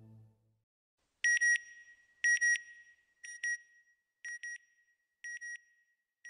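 Electronic double beeps of an end-logo sting, one pair about once a second, six times, each pair fainter than the last. The last of the music fades out just at the start.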